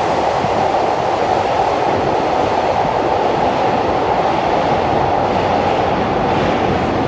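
Freight train passing at high speed: a loud, steady rush of wheels on rail.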